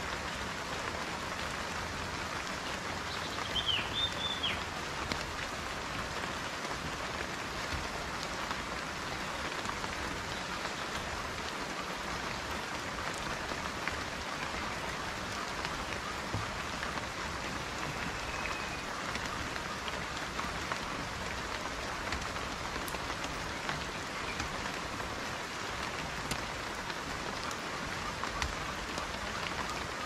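Steady rain falling, an even hiss throughout. A bird chirps briefly a few seconds in, with a fainter call later.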